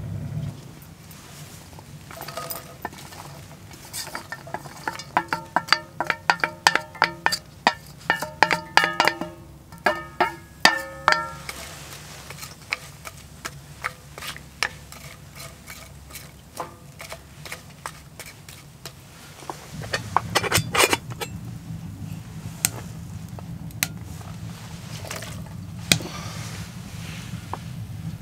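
Cooking at a camp wood stove. For several seconds near the start, metal cookware clinks over and over, each clink ringing briefly. Then sliced onions are stirred and scraped with a wooden spatula in a cast iron skillet, among scattered knocks and clinks.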